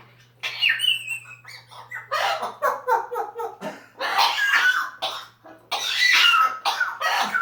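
African grey parrot vocalizing in a rapid string of short calls: whistled glides mixed with squawks and cough-like bursts, which the uploader takes for coughing from severe pneumonia.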